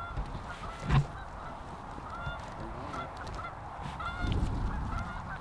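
Flock of Canada geese calling at a distance, many short scattered honks over a low rumble of wind, with one brief thump about a second in.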